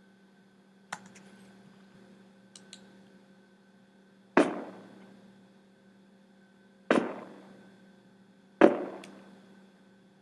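Gunshot sound effects previewed on a computer: three sharp shots, each with a short fading tail, the second about two and a half seconds after the first and the third under two seconds later. A few faint clicks come before them, over a steady low hum.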